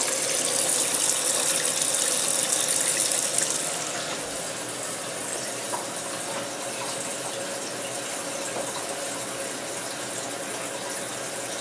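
Water running into a Maytag Neptune front-loading washer through its detergent dispenser, a steady rushing hiss: the hot water and fabric softener fill of the quick service test cycle, with the inlet valve open. The sound drops a little in level about four seconds in.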